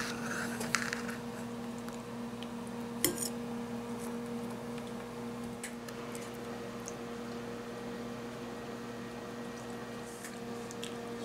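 A steady hum in a quiet kitchen, with a spatula scraping a ceramic bowl in the first second and a few light fork clicks, one sharper click about three seconds in.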